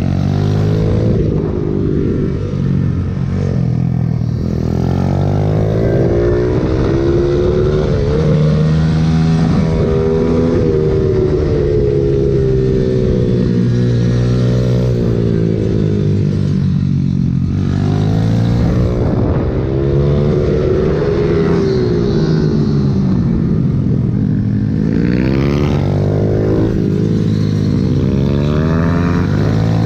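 Pit bike engine heard from on board, its revs rising and falling over and over as the rider accelerates and backs off around the track.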